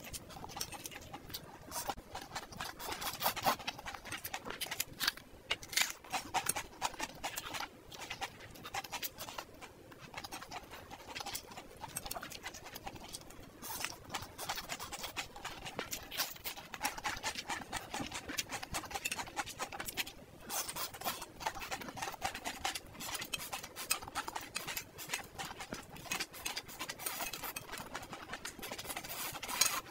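Close-miked mukbang eating sounds: a person chewing and slurping spicy stir-fried noodles, with a dense run of wet mouth clicks and smacks throughout.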